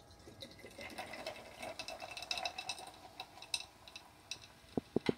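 Ginger ale poured from a plastic bottle into a glass jar of ice, fizzing and crackling as the carbonated soda foams over the ice. A few short ticks near the end.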